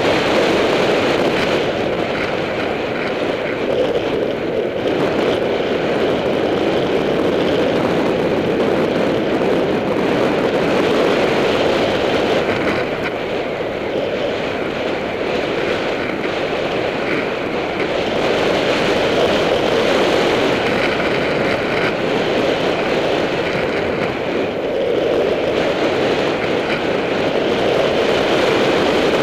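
Wind rushing over the microphone of a helmet-mounted camera on a mountain bike riding fast down a dirt track, a steady roar that swells and eases every few seconds.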